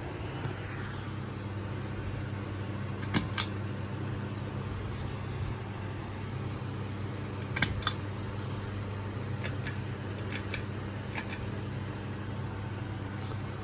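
Hunter Coastal Breeze ceiling fan running with a steady low motor hum and a whoosh of air, broken by a few sharp clicks: a pair about three seconds in, another pair near eight seconds, and several more between about nine and eleven seconds.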